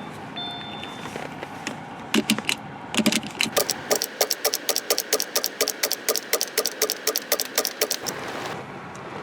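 Subaru seatbelt tongue being snapped in and out of its buckle over and over, fast sharp latch clicks at about four or five a second for around six seconds. This is the in-and-out sequence that switches off the seatbelt reminder chime. A two-tone seatbelt reminder chime dings once at the very start.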